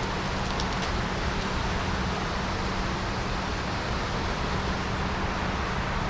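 Steady, even rushing of the Delaware River flowing over shallow riffles below, with a couple of faint ticks under a second in.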